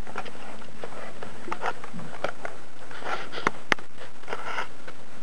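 Automatic wire strippers being handled as a thin wire is set in their jaws: a few short rustles and two sharp clicks about three and a half seconds in, over a steady background hiss.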